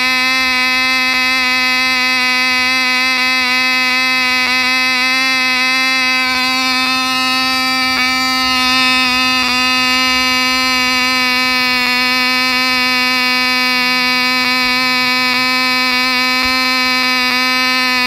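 Tiny glow-plug two-stroke engine of a Cox Fokker D-7 model plane running at full speed on a test run, a steady high-pitched buzz that holds its pitch.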